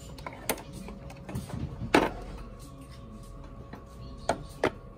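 Hard objects being handled, knocking and clicking against each other. There are a few sharp knocks, the loudest about two seconds in and two quick ones near the end, over a faint steady hum.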